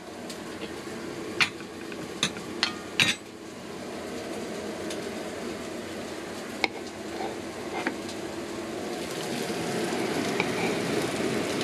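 Garlic and onions frying in hot olive oil in a pan, stirred with a spatula. The spatula knocks against the pan about four times in the first few seconds and once more midway, and the sizzle grows louder near the end.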